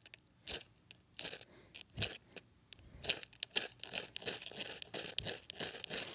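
A fire-starter rod (flint-and-steel type) being struck over and over with its scraper: a run of short, sharp rasping scrapes, irregularly spaced at about one to two a second. The sparks are failing to light the damp leaves and grass used as tinder.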